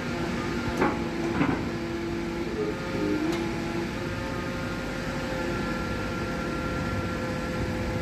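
Hydraulic static pile driver running, its engine and hydraulic pump making a steady drone with several held tones. Sharp metallic knocks come about one second in, again half a second later, and once more near three seconds in.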